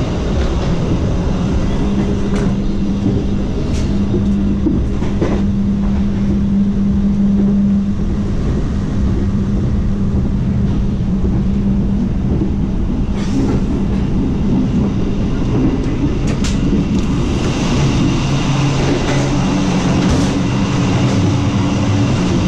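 Running noise inside a moving stainless-steel passenger train carriage: a steady rumble of the wheels on the track with a low hum, and a few sharp clicks.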